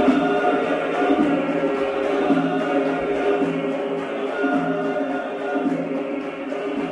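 Background music: a choir singing long, held chords.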